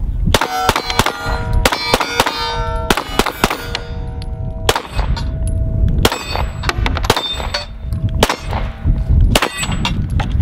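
Stoeger STR-9 9mm pistol firing a long string of shots in quick runs with short pauses, each shot followed by the clang and ring of a steel target being hit.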